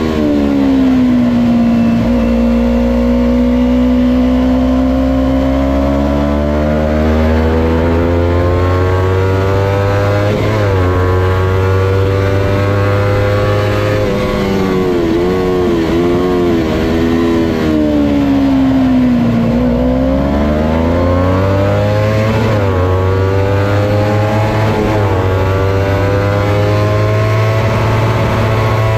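Kawasaki Ninja 250's parallel-twin engine at racing revs, rising and falling continuously. The revs drop in the first two seconds, hold low, then climb with short breaks at gear changes around ten seconds. They waver several times, fall again just before twenty seconds, and climb through two more gear changes to the end.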